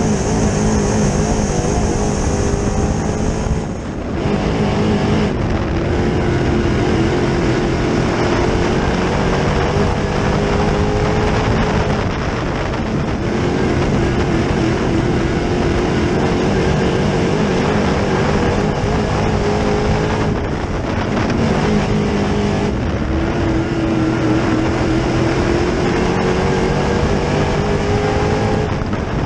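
A 604 crate-engine dirt late model's small-block V8 racing at speed, heard from inside the car. The engine note climbs and falls again and again as the driver gets on and off the throttle, with a brief lift about four seconds in.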